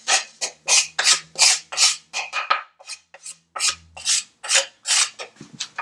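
Wooden spoon scraping across a bamboo cutting board in quick repeated rasping strokes, about three a second, pushing salt, lime zest and ground nutmeg off the board.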